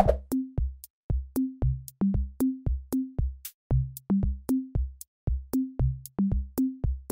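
Background music: a bouncy electronic beat of short, low plucked notes, each with a drum-machine click, about three a second.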